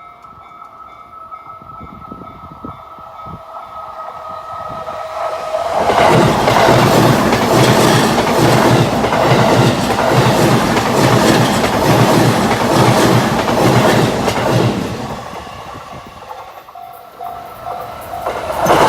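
Chuo Line train passing close by, its wheels clattering rhythmically over the rail joints. It builds over the first few seconds, runs loud for about nine seconds, then fades. A steady electronic ringing tone, typical of a level-crossing warning bell, sounds before the train arrives and again briefly after it passes.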